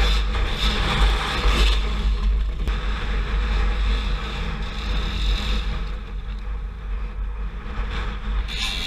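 Dirt bike engine revving hard on a steep hillclimb, loudest in the first couple of seconds and dropping away later as the bike loses its climb and goes down.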